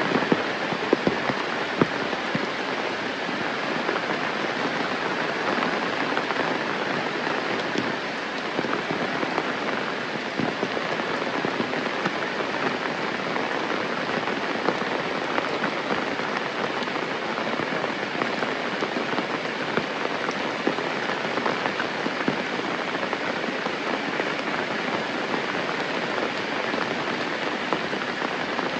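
Steady rain falling, with many individual drops pattering on surfaces and a few sharper drop hits about a second in.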